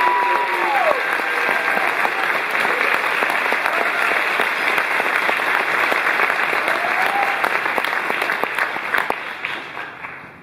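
Audience and performers applauding, a dense clapping that thins out and dies away near the end. A held note carried over from before slides down in pitch and stops about a second in.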